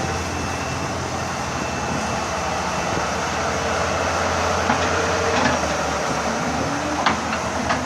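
Excavator running, its diesel engine a steady low hum, with a few short knocks from the machine as it works.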